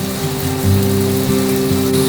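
Soft background music of held low notes that change every second or so, over a steady hiss of rain.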